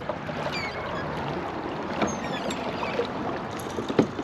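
Kayak moving on a flowing river: a steady rush of water against the hull, with a few light knocks, the sharpest near the end, and some faint high chirps in the first half.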